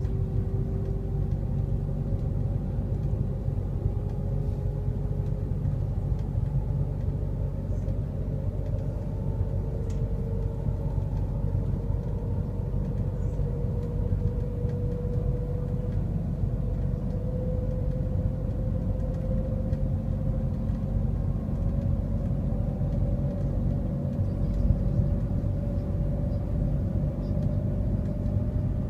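Shanghai Transrapid maglev train heard from inside the passenger cabin: a steady low rumble with a faint whine that slowly rises in pitch, as the train gathers speed.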